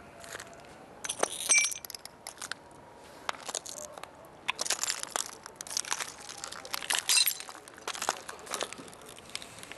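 Broken glass shards from smashed paint-filled bottles crunching and clinking in irregular sharp clicks, with a few louder ringing clinks of glass about a second and a half in and again around seven seconds in.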